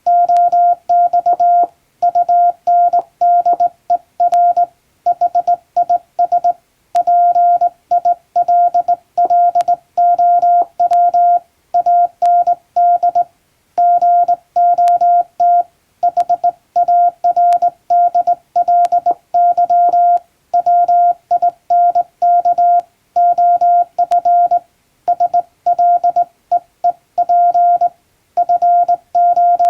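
Morse code sent by hand on a straight key: a single steady tone switched on and off in short dots and longer dashes, grouped into letters and words with gaps between them.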